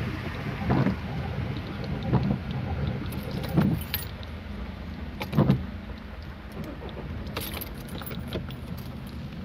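Inside the cabin of a Mercedes-Benz car driving through a flooded street: a steady low rumble of engine and tyres in water. Four dull thumps and splashes come in the first half, and a scatter of light clicks follows near the end.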